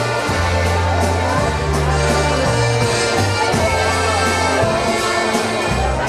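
Live polka band playing a waltz, led by a button box accordion over a bass line that changes note every beat or two and regular drum hits.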